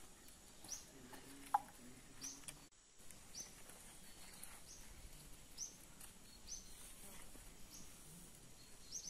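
Faint outdoor quiet with a small bird giving a short, high chirp over and over, about once a second. A single sharp tap sounds about one and a half seconds in.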